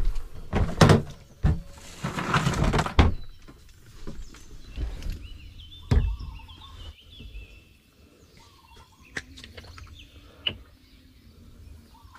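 Knocks and rustling as a plastic ice cooler is opened and rummaged in, then a single knock as a plastic drink bottle is set down on the wooden counter, about halfway through. Birds chirp faintly in the background.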